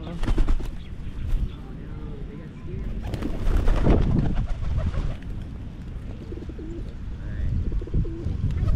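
Feral pigeons cooing as they feed, with a rush of wing flapping about three seconds in as much of the flock takes off.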